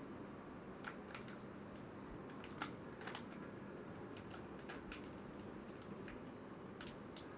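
Soft, scattered crinkles and clicks of a foil seal being peeled off the plastic toy half of a Kinder Joy egg, with one sharper click about a third of the way in, over a faint steady hiss.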